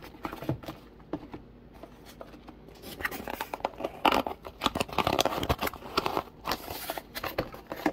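Hands working at a small cardboard box to pry it open: irregular scratching, scraping and clicking of cardboard, with handling noise close to the microphone. It is sparse at first and gets busier and louder from about three seconds in.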